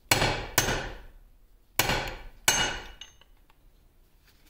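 Hammer striking a pin punch four times, sharp metallic blows that each ring and die away: two close together near the start and two more about two seconds in. The punch is driving a stubborn taper pin out of a gear shaft in a 1950 LeBlond Regal lathe's apron, and the pin has just begun to move.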